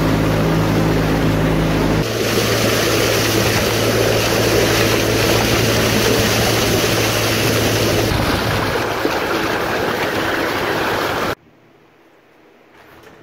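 Pontoon boat's outboard motor running with a steady low hum under loud rushing and splashing water from the wake along the pontoon tubes, with wind on the microphone. The water surges up between the tubes under the deck. It all cuts off abruptly about two seconds before the end.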